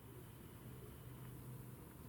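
Near silence: faint steady background hiss with a low hum, and no distinct sound.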